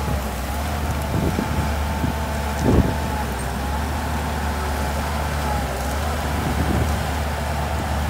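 Shantui DH17C2 bulldozer's diesel engine running steadily under load, with a constant whine above the low engine note and a few sharp knocks, the loudest about three seconds in.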